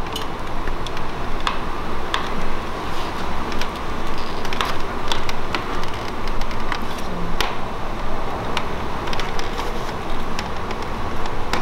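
Scattered light plastic clicks as the retaining tabs of a BMW kidney grille are pressed in and the grille is worked out of the bumper. A steady fan hum runs underneath.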